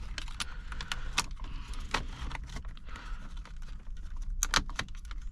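Plastic wiring connectors and loose harness wires clicking and rattling as they are handled and pushed into place, a scatter of small sharp clicks with a quick cluster of them near the end.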